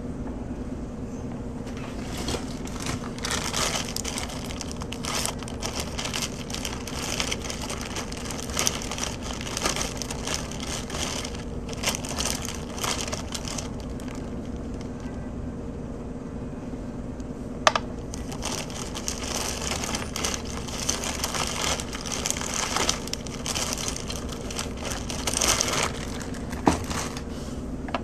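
Tape being pulled off the roll and wrapped around a silver coin ring, crinkling and rustling in irregular bursts, with a couple of sharp clicks as it is handled. A steady low hum runs underneath.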